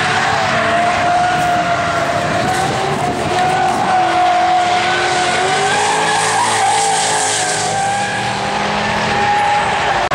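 Drift car sliding sideways with its engine running and its rear tyres spinning and squealing in one long, wavering tone.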